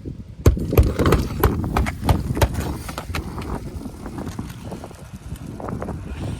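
Hammer driving roofing nails through an asphalt shingle: a run of sharp strikes over the first few seconds, followed by lighter knocks.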